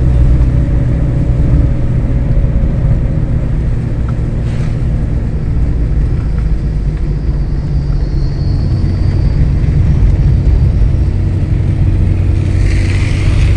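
An engine running steadily under a heavy low rumble.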